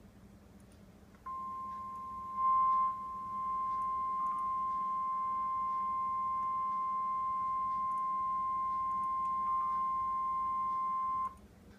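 NOAA Weather Radio 1050 Hz warning alarm tone: a single steady beep held for about ten seconds, then cut off sharply. It is the signal that sets off weather alert receivers ahead of a warning broadcast.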